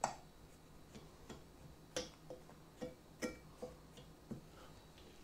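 A fork poking holes in pizza dough, its tines tapping the bottom of a cast iron skillet: faint, irregular light ticks, a little under two a second, some with a short metallic ring.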